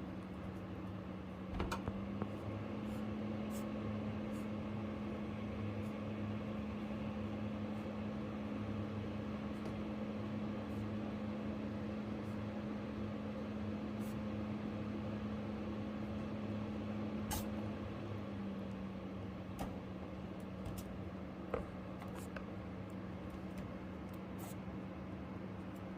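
Steady mechanical hum from a running motor or appliance. Its pitch steps up slightly about two seconds in and drops back near eighteen seconds, with a few short sharp ticks here and there.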